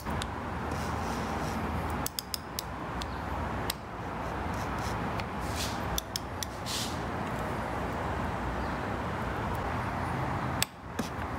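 Click-type ratcheting torque wrench being worked back and forth on an oil filter cap, giving scattered short ratchet clicks over a steady hiss. A last click near the end is the wrench breaking at its 25 N·m setting, the sign that the cap is at the right torque.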